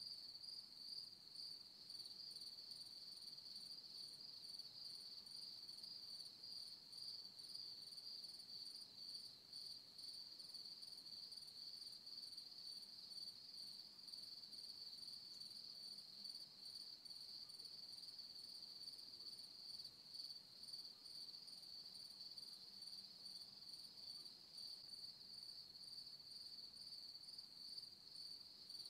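Faint, steady chirring of insects, a continuous high trill that goes on without a break.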